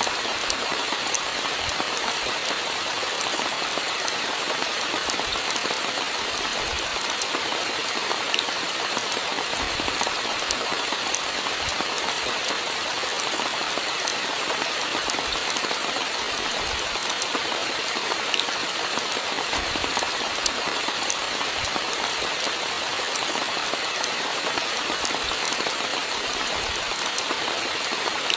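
Steady rainfall: a dense, even hiss with many separate drops ticking sharply through it.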